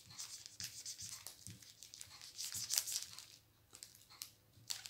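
A pen scratching in short, irregular strokes as it writes on a diamond-painting kit's plastic pouch, with light crinkling of the plastic.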